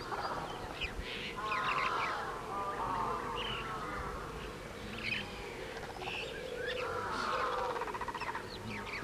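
Birds calling and chirping, many short overlapping calls coming and going, busiest about two seconds in and again near the end.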